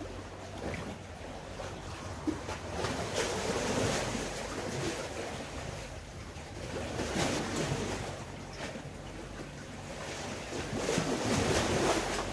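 Sea waves washing in, the noise of the surf swelling and falling back three times, with wind buffeting the microphone.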